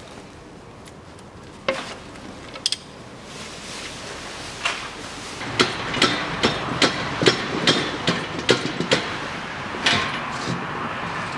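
Sharp metal knocks and clatter under a car during an oil change, a few scattered at first and then about a dozen in quick succession from about halfway in, over a rising rushing noise, as the drain plug is worked loose and a stainless drain pan is moved into place.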